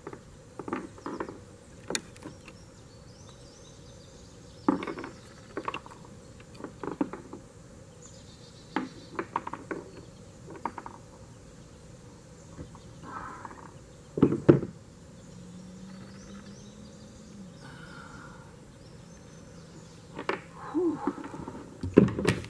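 Irregular knocks and thumps on and against a kayak as a big channel catfish is handled on the line, the loudest thump about two-thirds of the way through, with faint insect buzzing behind.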